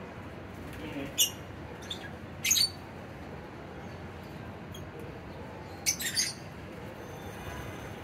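Lovebirds giving short, high-pitched calls: four sharp calls, one about a second in, a slightly longer one near two and a half seconds, and two close together about six seconds in, over a steady low background noise.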